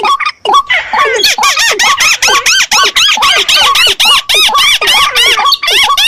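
Recorded calls of paddy-field waterbirds (rails, crakes and waterhens) played as a hunting lure: a rapid, even run of repeated rising-and-falling calls, about five a second, after a brief pause near the start.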